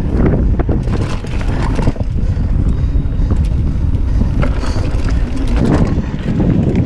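Mountain bike descending a dirt singletrack: wind buffeting the action camera's microphone as a steady low rumble, with the tyres on dirt and the bike rattling and clicking over bumps.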